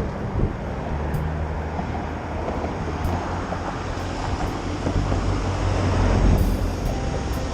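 Strong wind buffeting the microphone outdoors, a steady loud rumble with gusts, louder about six seconds in.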